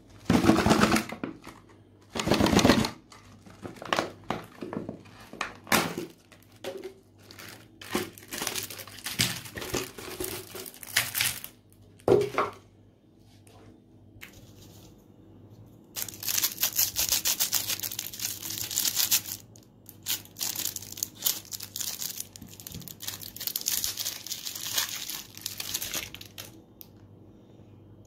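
Cellophane lollipop wrappers crinkling in bursts as the wrapped lollipops are handled and set down, then about ten seconds of dense, continuous crinkling and tearing as one lollipop is unwrapped.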